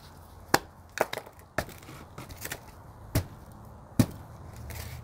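About six irregular sharp knocks as fresh potting soil is settled into a tall plant pot: the soil jabbed with a stick and the pot knocked against the table so that the soil sinks down.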